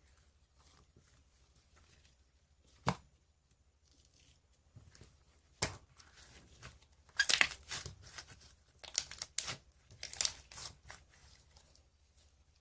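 Slime being played with by hand: single sharp pops about 3 and 6 seconds in, then a run of crackling, snapping pops in the second half.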